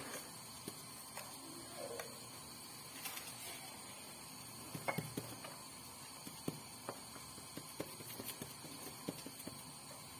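Hand pressing damp semolina dough flat into a square metal baking tin: faint scattered taps and soft rubbing, with a slightly louder knock about five seconds in.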